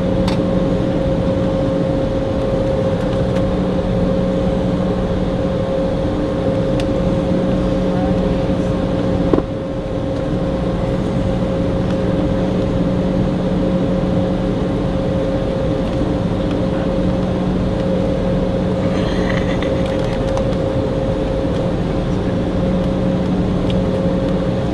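Steady cabin drone of an Embraer E190 airliner stationary on the ground, a constant hum with engines and air systems running. A sharp click about nine seconds in is followed by a short dip in the drone, and its lower hum briefly cuts out.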